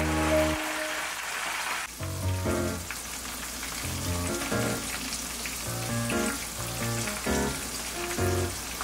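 Instrumental background music with spaced keyboard chords over a bass line. A loud crackling sizzle, like hot frying, fills the first two seconds and then cuts off suddenly.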